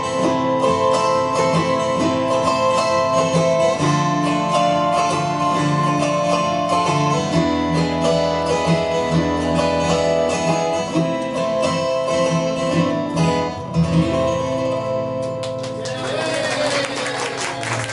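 Acoustic guitar strummed with an autoharp in a song's instrumental ending, with no singing. The chords stop about fifteen seconds in and clapping starts.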